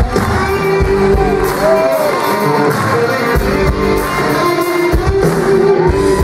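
Live band with guitars and piano playing an upbeat pop-rock song, with a gospel choir singing along and a voice sliding up and down through a few held notes.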